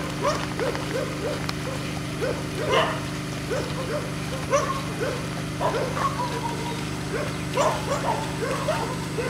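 A dog yipping and whimpering in many short, high calls a few times a second, with a few louder yelps among them, over a steady low hum.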